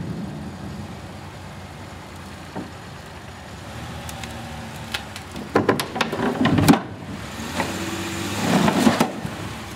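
A Pontiac coupe's engine running as the car is driven up wooden loading ramps. In the second half come sharp knocks and creaks from the ramps and trailer deck taking the car's weight, and the engine gets louder near the end as it pulls up the incline.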